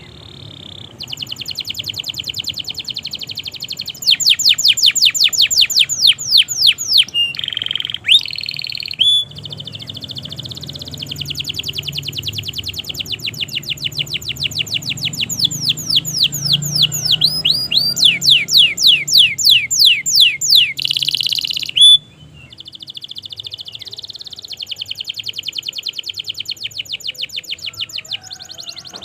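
Domestic canary singing a long song: long fast trills of rapidly repeated chirps and downward-sweeping notes, broken by a few short pauses.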